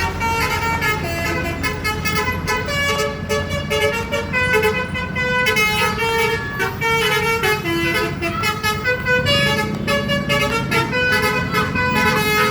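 Bus 'telolet' horn, a multi-tone musical horn, playing a quick melody of stepping notes without a break over a steady low rumble.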